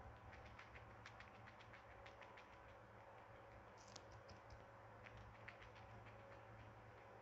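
Syrian hamster nibbling and chewing a piece of cucumber right at the microphone: a quick run of faint, crisp crunching clicks, thinning out after about two seconds.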